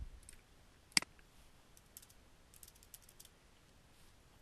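Computer mouse and keyboard clicks at a desk: one sharp click about a second in, then a scatter of faint light clicks over the next couple of seconds.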